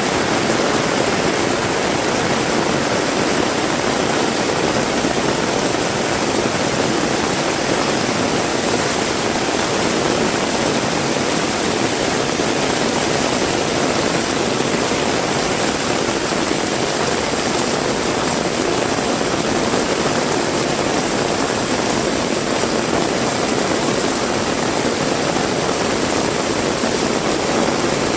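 Heavy rain pouring steadily, a dense even hiss with no breaks or separate events.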